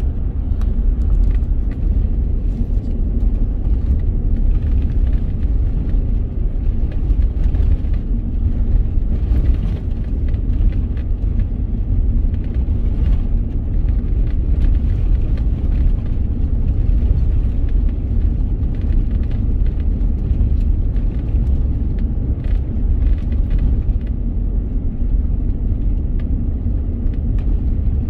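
Vehicle driving on a gravel road: a steady low rumble of tyres and running gear, with scattered faint ticks through it.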